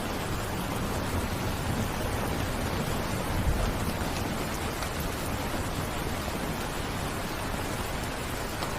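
Steady rain falling, an even hiss with no break. A brief low rumble swells underneath about three and a half seconds in.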